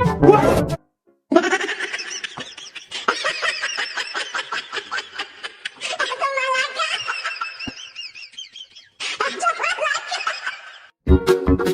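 High-pitched laughing and giggling in quick pulses, with a short break partway through. Music with a steady beat starts near the end.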